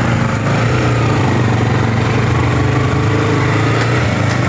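Motorcycle engine running steadily at low speed, heard from the bike itself, with an even, unchanging pitch.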